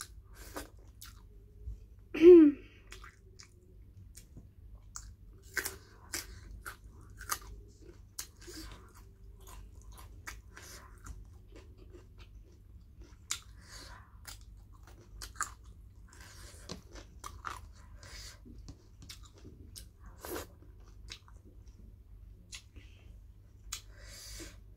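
Close-miked chewing and lip smacking of someone eating pork with rice by hand, many small wet mouth clicks throughout. About two seconds in, a brief voiced sound with a falling pitch from the eater is the loudest moment.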